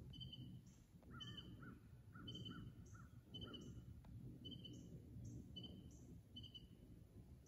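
Faint dawn woodland sounds: short high chirps repeating about twice a second, with a brief run of lower bird calls between about one and three and a half seconds in.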